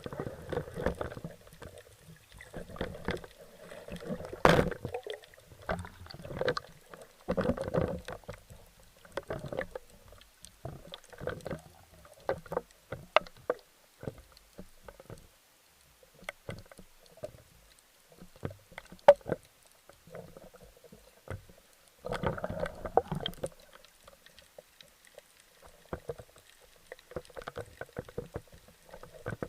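Irregular muffled water sloshing and rustling, heard through a camera's waterproof housing, with scattered sharp clicks and knocks; the loudest click comes about 19 seconds in.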